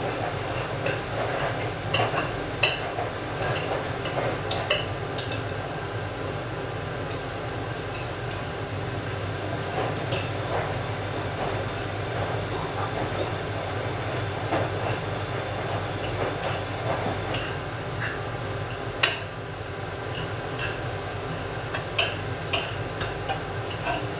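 Knife and fork clinking and scraping on a plate as cooked mackerel is shredded, in irregular light clicks over a steady low hum.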